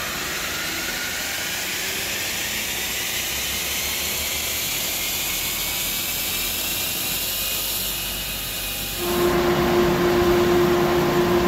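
Ford Explorer ST's twin-turbo V6 at full throttle on an all-wheel-drive chassis dyno, with a steady rush of roller and tyre noise, its pitch climbing as the revs rise from about 2,600 to 5,500 rpm. About nine seconds in, this gives way to a louder steady hum with a fixed drone.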